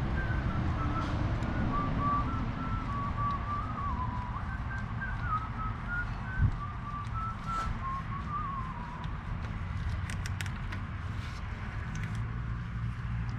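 Someone whistling a wandering tune for about nine seconds, over a steady low rumble. There is one sharp knock about six and a half seconds in, and a few light clicks near ten seconds.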